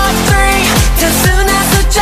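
Upbeat electronic dance-pop music with no singing: a steady kick drum on every beat, a little over two a second, under held synth notes.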